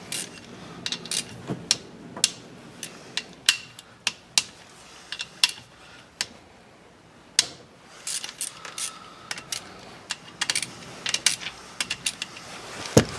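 Irregular metallic clicks and clinks of hand tools and small bolts and parts on a Honda CRF250 engine's cylinder head as it is being dismantled, with a louder click near the end.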